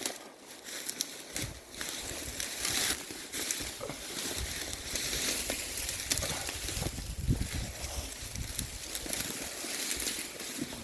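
Wind buffeting the microphone in uneven gusts, a low rumbling rush with hiss on top, rising and falling.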